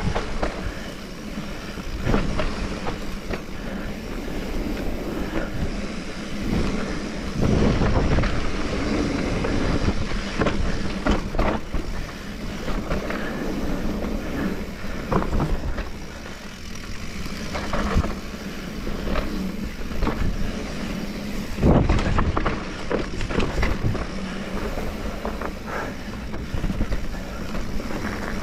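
Mountain bike riding down a trail: wind buffeting the microphone and tyres running over dirt, with frequent sharp knocks and rattles from the bike over bumps.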